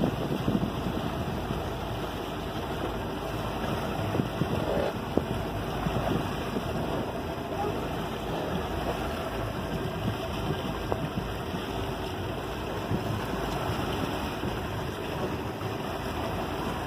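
Motorboat under way, its engine running steadily over the rush of the wake, with wind buffeting the microphone.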